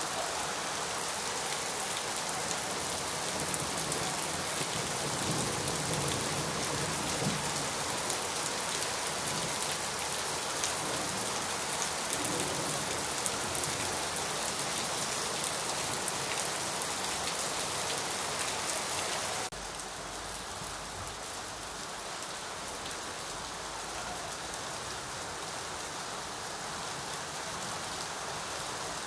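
Steady rain falling, a dense even hiss of many drops. About two-thirds of the way through it cuts abruptly to a slightly quieter rain with a low rumble underneath, a splice between two rain recordings.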